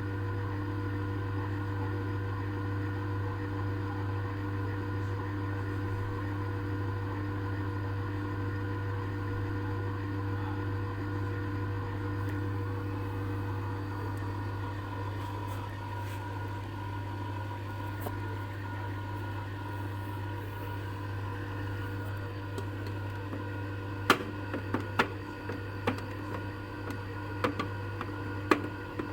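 Compressor ice cream maker running with a steady electric hum from its compressor and churning motor. Several sharp clicks or knocks come near the end.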